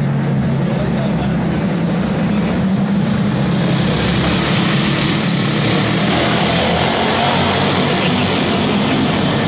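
Several go-kart engines running together, a steady drone echoing in a large indoor arena. It grows brighter about three and a half seconds in as the karts come round nearer.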